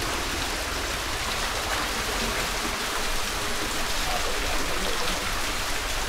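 Small waterfall splashing into a shallow rocky pool: a steady rush and patter of falling water.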